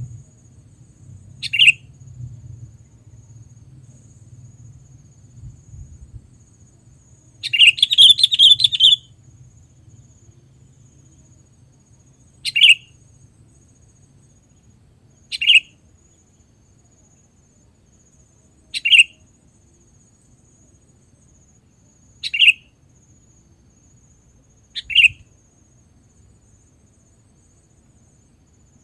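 Sooty-headed bulbul (kutilang) giving short, sharp chirps, one about every three seconds, with a longer, louder run of calls about eight seconds in.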